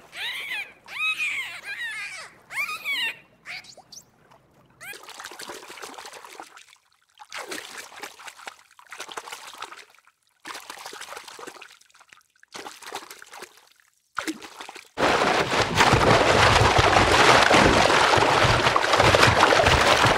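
Dolphins whistling, a quick run of rising-and-falling whistles over the first three or four seconds. Then water trickling and splashing in short separate bursts, and from about fifteen seconds in a loud steady rush of water.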